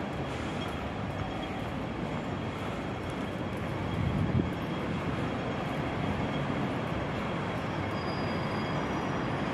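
Steady city street traffic noise, a low rumble of road vehicles, with one passing louder about four seconds in.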